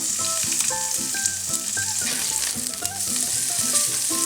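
Halved garlic, anchovies and chili frying in olive oil in a pan, a steady sizzle with a few light clicks of stirring. Background music notes play over it.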